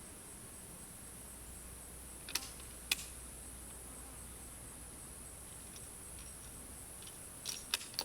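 Insects chirring in a steady, high continuous tone, with a few light, sharp clicks: two about two and a half seconds in and three near the end.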